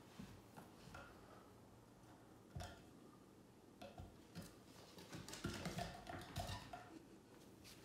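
Near silence broken by a few faint taps and scuffs from a cat playing with a stuffed toy mouse on a hardwood floor, with one sharper tap about two and a half seconds in and a cluster of them later on.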